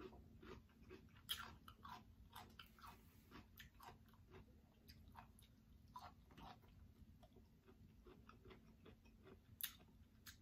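Person chewing raw cucumber: a run of quiet, irregular crisp crunches and mouth clicks, one sharper crunch about a second in and another near the end.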